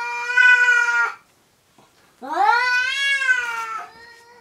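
Cats caterwauling: long, drawn-out yowls traded between a house cat and a stray, typical territorial yowling between rival cats. One yowl ends about a second in. A second rises and falls from about two seconds in, and a fainter call follows near the end.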